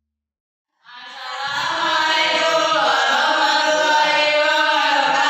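Several boys' voices chanting loudly together in unison, starting about a second in.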